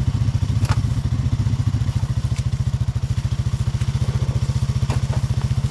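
A motor vehicle's engine running steadily, a fast low throb, with a few faint clicks and knocks over it.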